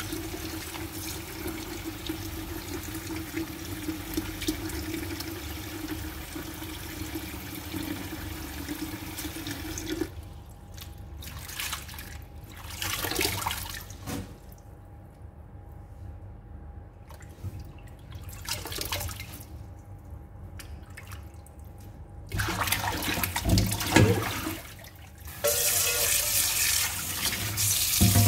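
Kitchen tap running into a stainless-steel bowl of gergir (arugula) leaves in a steel sink as a hand swishes them. About ten seconds in the water stops, leaving only quieter handling sounds, and near the end the tap runs again, splashing into the emptied metal bowl.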